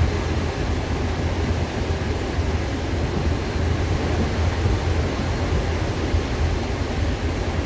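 Paris Métro MP 73 rubber-tyred train heard from inside the car while running: a steady low rumble under an even hiss.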